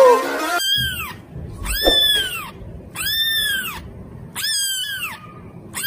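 Kitten mewing: five high, drawn-out meows about a second apart, each rising and then falling in pitch.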